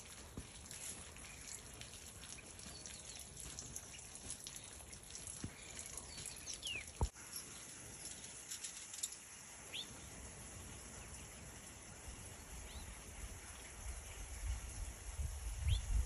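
Garden songbirds giving a few short, high chirps, scattered and faint over a quiet outdoor hiss. A single sharp click comes about seven seconds in, and a low rumble builds near the end.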